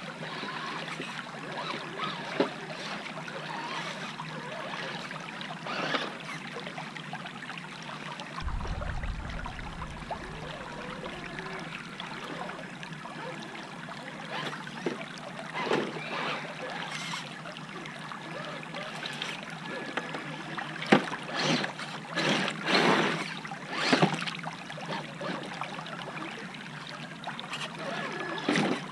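Shallow rocky creek running steadily right at the microphone. Over it come occasional sharp splashes and knocks from an RC crawler truck driving through the water, busiest and loudest about three quarters of the way through.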